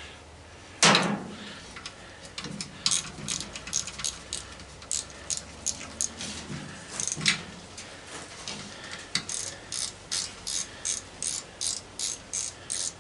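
Hand ratchet clicking as a screw is backed out: a single clunk about a second in, then clicks, uneven at first and settling into a steady run of about three a second near the end.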